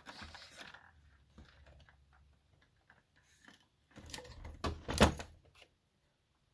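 Faint handling clicks and rustles as an opened VCR is worked on, then a louder clatter of parts about four seconds in, peaking in one sharp knock.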